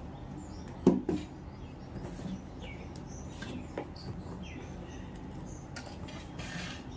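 A cardboard box set down on a table with two knocks about a second in, followed by faint rustling as a ribbon tied around it is undone.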